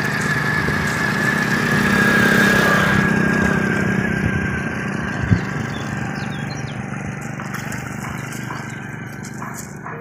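An engine running steadily with a hum, growing louder over the first two or three seconds and then slowly fading. A single short knock comes about five seconds in.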